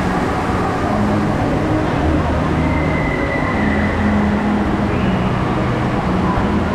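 Steady, loud wash of moving water and echoing hall noise of an indoor waterpark's lazy river, with faint distant voices.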